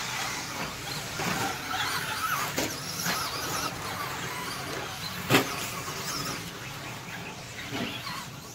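Electric RC short-course trucks (Traxxas Slash 2WD) racing on dirt: the whine of their motors and gears rises and falls with the throttle over the hiss of tyres on loose dirt. Several sharp knocks sound, the loudest about five seconds in.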